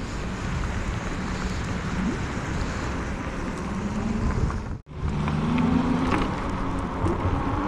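Electric bike ridden over a snowy road: wind buffeting the microphone and tyre noise, with a low motor whine rising in pitch twice as the bike speeds up. The sound drops out for an instant a little before five seconds in.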